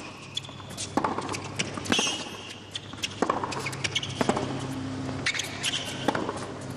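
Tennis rally on a hard court: rackets strike the ball about once a second, with short sneaker squeaks on the court between shots.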